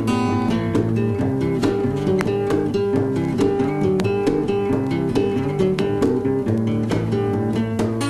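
Background music led by acoustic guitar, with a quick run of plucked and strummed notes.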